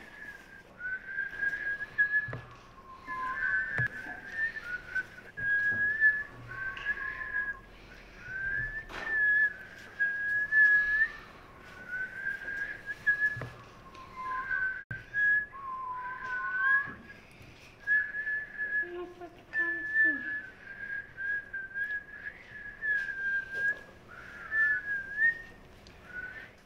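A girl whistling a tune through pursed lips, in short phrases with brief pauses between them. The melody mostly holds a high note with small slides, now and then dipping lower.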